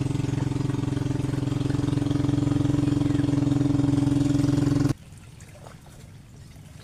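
An engine running steadily at a constant speed, growing slightly louder, then cutting off abruptly about five seconds in, leaving only quiet background.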